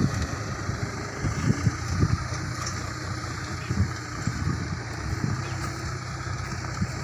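Mahindra 475 DI tractor's diesel engine running steadily under load as it pulls a cultivator through dry soil, with a few uneven low thumps in the first two seconds.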